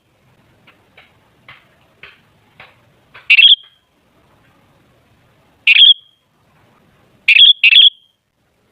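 Sooty-headed bulbul calling: loud, short, sharp calls, one about a third of the way in, another past the middle, and a quick pair near the end, with fainter short notes in the first few seconds.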